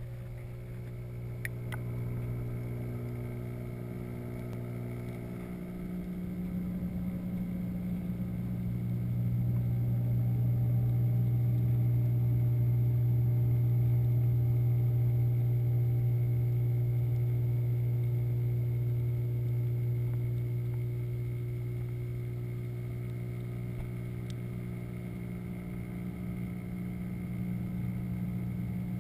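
Steady low electric hum of an aquarium pump, heard underwater through the water of a saltwater reef tank. It grows louder for a stretch in the middle and eases off toward the end.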